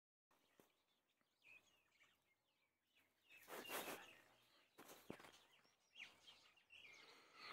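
Near silence outdoors: faint bird chirps now and then, with a few soft rustling scuffs and a single click near the middle.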